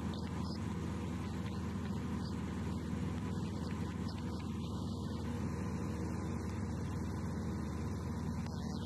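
Light aircraft's piston engine and propeller droning steadily in flight.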